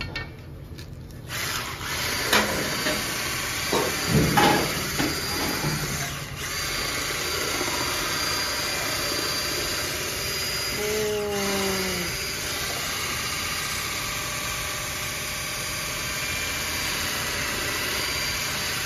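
Electric hand mixer switched on about a second in and running steadily, with a few knocks against the bowl near the start.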